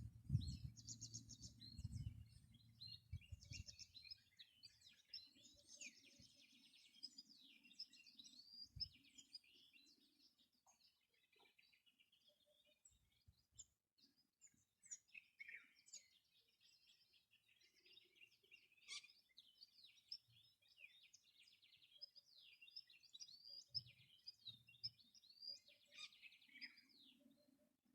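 Several wild birds chirping and trilling at once, faint, with short calls overlapping throughout. Low thumps and rumble during the first few seconds.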